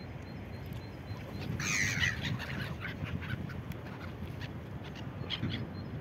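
Black-headed gulls calling: a loud cluster of calls about one and a half seconds in, a few shorter calls after it, and another couple of calls near the end, over steady low background noise.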